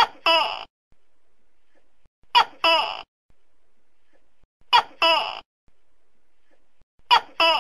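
Tokay gecko giving its loud two-part "to-kay" call four times, about every two and a half seconds; each call is a short sharp note followed at once by a longer one.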